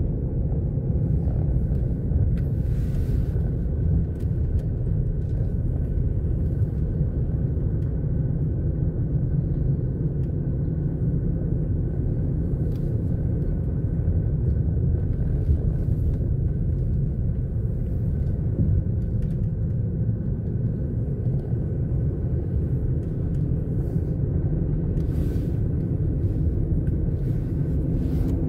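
Car driving slowly: a steady low rumble of engine and tyres, with a few faint ticks.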